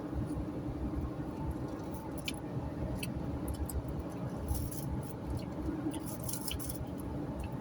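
Steady road and engine noise inside a car cabin at highway speed, with a constant low hum and scattered light clicks and rattles, thickest about four and a half and six seconds in.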